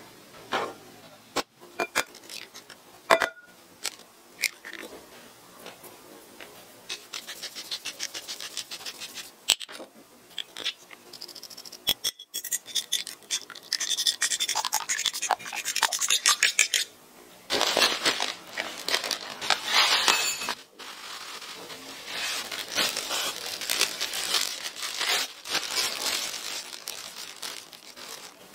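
Fork whisking eggs in a bowl: fast scraping, clinking strokes in several spells, after a few scattered clicks and taps.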